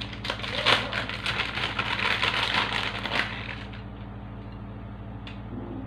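Shredded parmesan being shaken from its container and sprinkled over the sauce: a rapid, crackly rustling of many small clicks that is busiest for about three seconds and then thins out.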